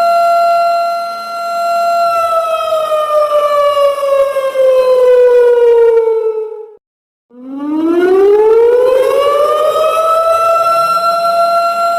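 Siren sound effect wailing: a steady high tone that slowly falls in pitch for about five seconds, cuts out for a moment around the middle, then rises back up and holds steady again.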